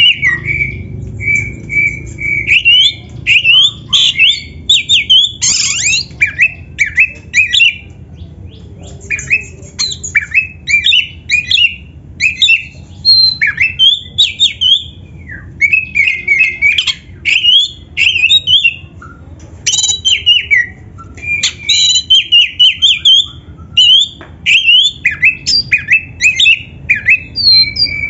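Oriental magpie-robin in full song: a rapid, unbroken run of varied whistled phrases, rising and falling slurs, with harsh squawking notes mixed in. A few level whistles are held for a second or two, early on and again near the end.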